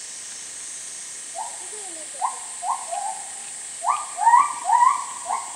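A bird calling: a series of short, clear notes, first a softer run and then a louder run of about four notes near the end.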